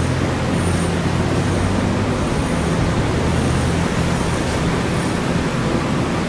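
Taiwan Railway electric commuter train pulling slowly out of the station: a steady low hum under loud, even rushing noise, with a faint high whine coming and going.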